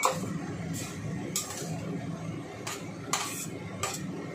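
A metal spatula scraping and clinking against a stainless steel wok during stir-frying. There is one sharp clink at the start, then several short scraping strokes.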